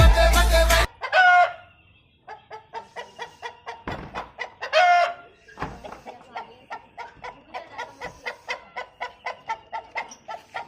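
Aseel chickens clucking in a rapid, even run of about four clucks a second, broken twice by a louder, short squawking call, the first about a second in and the second near the middle. Music stops within the first second.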